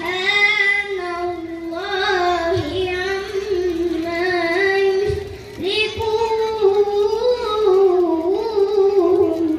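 A boy reciting the Quran in the melodic tilawah style into a handheld microphone: long held phrases that waver and turn in pitch, with one break for breath about five seconds in.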